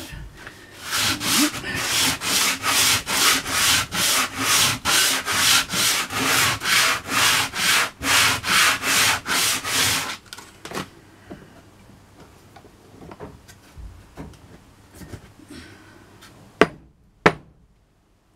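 Coarse 60-grit sandpaper rubbed fiercely by hand over a pallet-wood slat, quick back-and-forth strokes at about two and a half a second that stop about ten seconds in. Then quieter handling of the wood, and two sharp knocks near the end.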